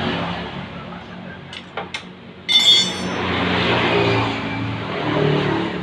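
Metal tools clinking against a motorcycle engine: two light clicks, then one sharp metallic clank about two and a half seconds in that rings briefly. A steady rumble runs underneath.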